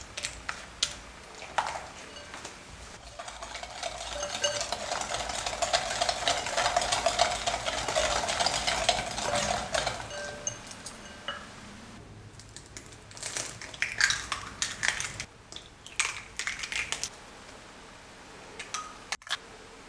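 Wire whisk beating a thick melted-chocolate mixture in a glass bowl, the wires clicking and scraping fast against the glass for several seconds. After that come a run of separate sharp taps and clicks as eggs are cracked and separated into small glass bowls.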